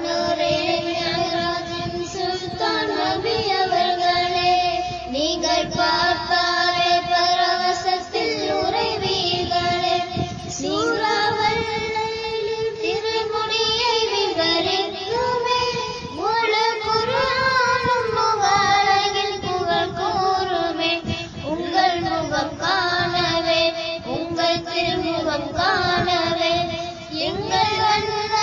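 A young girl's voice singing a Tamil song in long held notes with sliding pitch, over instrumental accompaniment.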